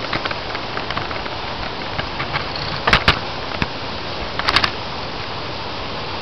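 Bicycle rattling over a rough dirt trail, with steady wind and tyre noise and a few sharp clatters about halfway through.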